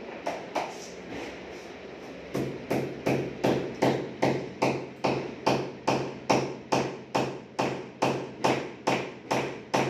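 Steady, even knocking, nearly three sharp strikes a second, each with a brief ring; fainter, irregular knocks come first and the regular strikes start about two seconds in.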